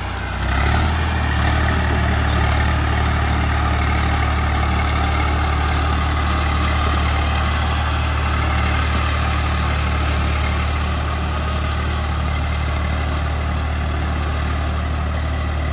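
Eicher tractor's diesel engine running steadily, picking up revs and getting louder about a second in, then holding an even, low note.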